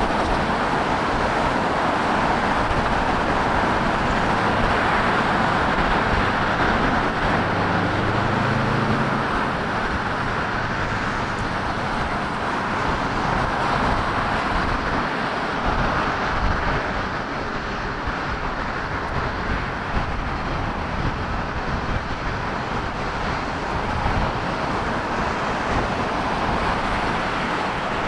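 Widebody jet airliner's engines at takeoff thrust during its takeoff roll, heard across the airfield as a steady broad rumble, mixed with road traffic.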